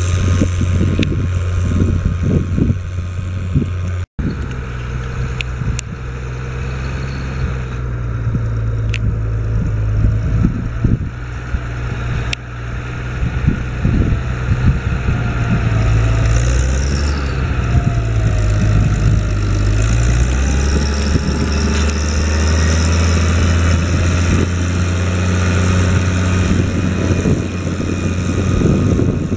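Case IH 1056 XL tractor's six-cylinder diesel engine running steadily while it pulls a four-furrow plough. The engine note shifts in pitch around the middle, as the tractor turns with the plough lifted before pulling into work again.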